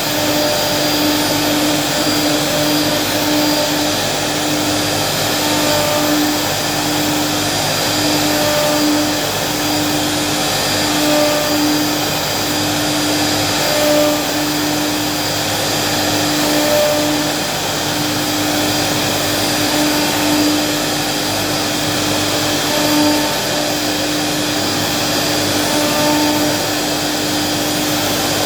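CNC machine running: a steady loud motor whir with a humming tone that breaks off briefly and resumes every second or so as it works.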